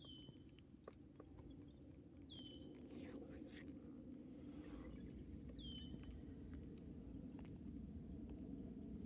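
A bird repeating a short, high call that slides quickly down and then holds briefly, about every two to three seconds, over a faint steady high whine and low wind or water noise.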